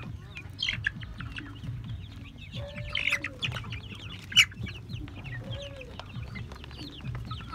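Flock of young chickens peeping and clucking while feeding, with many short high chirps, a couple of lower drawn-out calls, and sharp clicks of beaks pecking at a plastic feeder tray.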